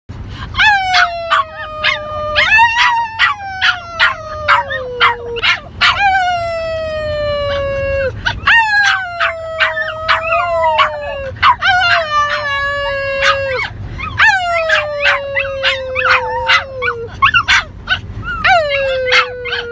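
Small dogs howling in long notes that slide down in pitch, about five howls of a few seconds each. Quick sharp yips and barks run throughout.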